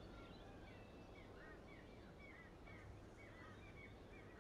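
Near silence with faint birdsong in the background: a quick series of short chirps repeating about three times a second through the middle.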